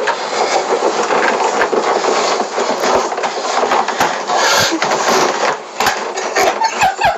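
Bumping, knocking and scraping of a person squeezing his body into a refrigerator's plastic interior, with clothes rustling against its walls.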